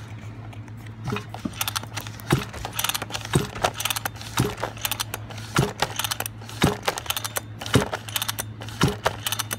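Pull starter of a large-scale RC car's two-stroke gas engine being pulled over and over with the choke on, about one pull a second, clattering and clicking, without the engine firing.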